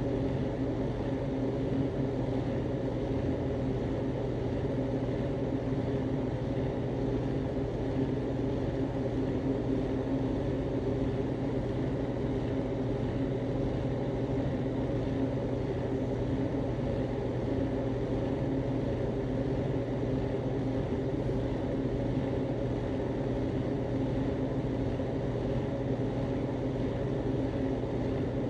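Steady low mechanical drone that runs unchanged, with no separate bursts or pauses.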